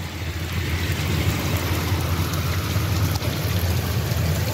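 Steady rain in a windy storm: an even hiss with a low rumble underneath.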